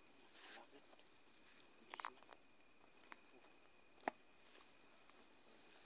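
Quiet night ambience: insects trilling steadily at a high pitch, with a short high chirp repeating every second or two. Two soft clicks come about two and four seconds in.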